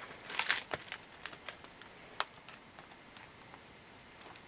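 Light rustling and crinkling of clear plastic packaging being handled, with scattered small ticks and one sharp click about two seconds in.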